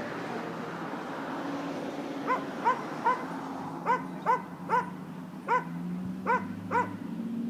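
Dog yipping: about nine short, high yips in quick clusters of three, starting about two seconds in.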